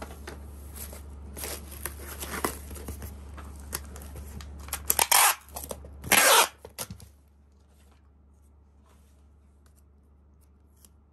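Cardboard box and plastic wrapping being handled, then packing tape pulled off a handheld tape dispenser in two loud, short strips about five and six seconds in to seal the box, followed by faint handling.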